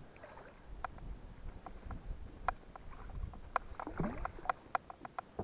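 Handling noise in an inflatable PVC boat as fishing line is pulled in by hand: a scattered run of short clicks and squeaks, busiest in the second half, with one short rising squeak about four seconds in, over a low rumble of the boat on the water.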